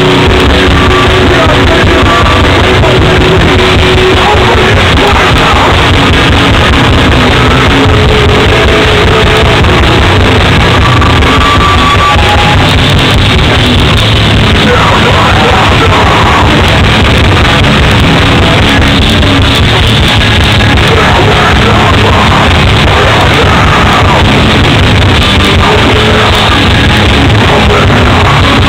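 Hardcore band playing live: distorted electric guitars, bass and drums, very loud and close to clipping in the recording, with shouted vocals at times.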